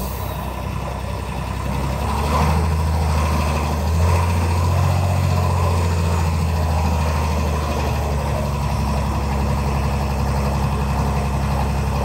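Mercedes six-litre six-cylinder turbo diesel truck engine running at low revs as the truck creeps forward under its own power. The engine note picks up about two seconds in and again about four seconds in, then holds steady.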